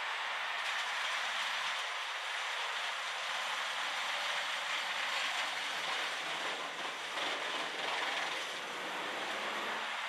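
Bandit 1850 wood chipper running and chipping wood: a steady, dense mechanical noise of the machine and of chips blasting out of its discharge chute.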